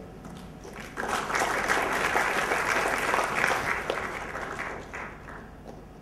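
Audience applauding. The clapping starts about a second in, holds for a few seconds, then dies away near the end.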